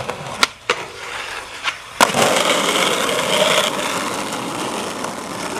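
Skateboard sounds: a few sharp clacks of the board, then a loud smack about two seconds in, followed by a few seconds of steady rough noise of the board's wheels and trucks on the ground.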